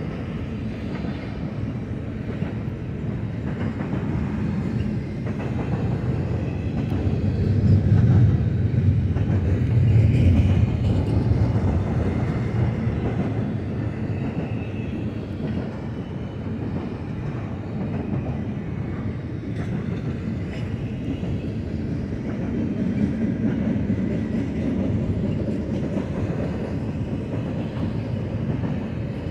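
BNSF double-stack intermodal well cars rolling past: a steady rumble of steel wheels on rail with some clicking, swelling louder briefly about a third of the way in.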